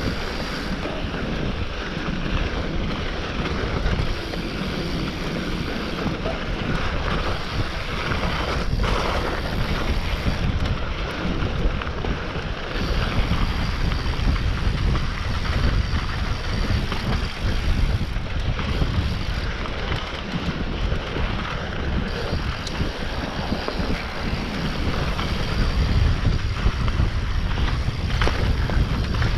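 Mountain bike riding fast down a dirt trail: steady wind rushing over the microphone mixed with tyre noise and the chatter of the bike over rough ground.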